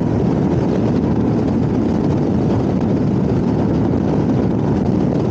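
Steady, loud rush of wind and road noise from a motorcycle travelling at speed, picked up by the rider's wireless microphone.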